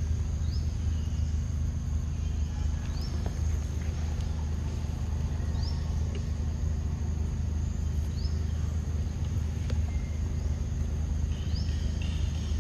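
A steady high insect drone with a short rising bird chirp that repeats about every two and a half seconds, over a steady low rumble.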